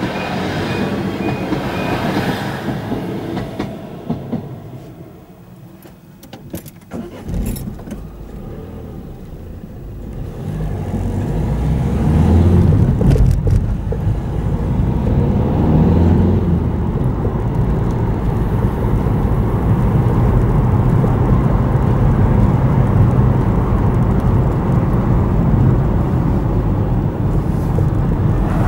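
A diesel multiple-unit train runs slowly over a level crossing while the crossing's pulsing warning alarm sounds, the alarm stopping about two seconds in. After a quieter lull with a few sharp knocks, a car pulls away from about ten seconds in and drives along a country lane, its engine and tyre noise rising and then running steadily.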